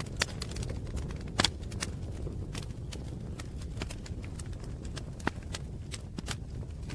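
Wood fire crackling: irregular sharp pops and snaps over a low steady rumble, with the loudest pops about a second and a half in and again about five seconds in.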